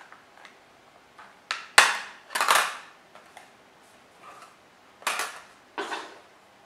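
Handling noises from a small plastic FPV video monitor being lifted out of its box and turned over in the hands: a sharp plastic click a little under two seconds in, followed by several short rustling, scraping bursts.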